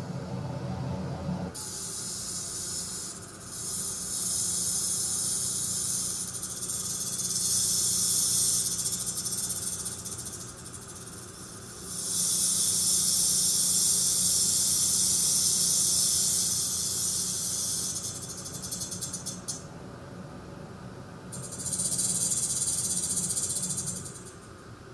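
Black-tailed rattlesnake rattling: a dry, high buzz in several long bouts broken by short pauses, over a steady low hum.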